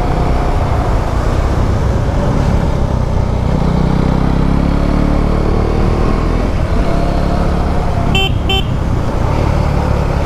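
KTM 390 Duke's single-cylinder engine running under way, its pitch rising a few seconds in, with wind rush. Two short horn toots about eight seconds in.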